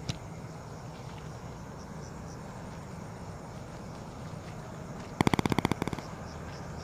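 Footsteps and rustling of people walking outdoors, over a steady low rumble. About five seconds in comes a loud, rapid rattle of about a dozen sharp clicks lasting under a second.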